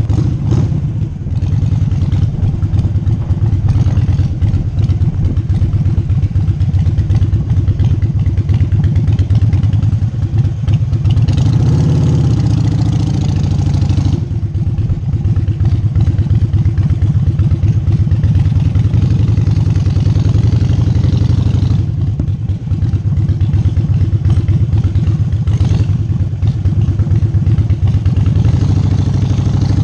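Harley-Davidson Sportster XL1200 Nightster's air-cooled 1200 cc V-twin running at low riding speed with a steady pulsing exhaust beat. It picks up briefly about eleven seconds in, then eases back.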